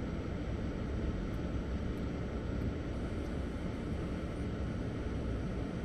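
Steady in-cabin noise of a car driving on a snow-covered road: an even engine and road rumble with a hiss over it.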